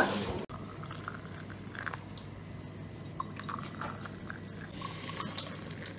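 Faint, scattered small clicks and crackles from eggs being handled, their shells cracked from egg tapping.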